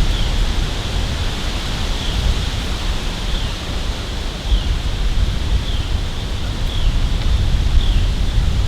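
Wind buffeting the microphone, a low rumble that rises and falls, with a faint short high chirp repeating about once a second.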